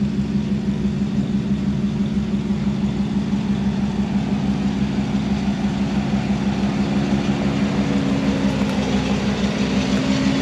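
Jeep Wrangler engine running at a steady low idle with an even, fast pulse as the Jeep crawls slowly up a rutted dirt trail.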